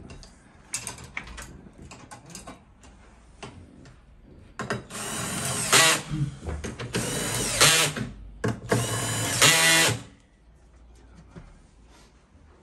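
Handheld power drill driving screws into a metal bracket on a sofa frame, whirring in three short bursts about five, seven and nine seconds in. Light clicks and handling knocks come before the first burst.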